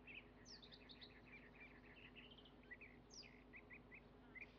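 Faint birds chirping in the background: many short, repeated calls and a few quick downward-sweeping notes, over a low steady hum.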